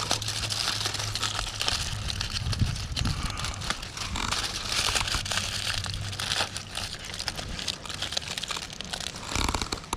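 Aluminium foil crinkling and crackling as it is folded and crumpled around a fish parcel.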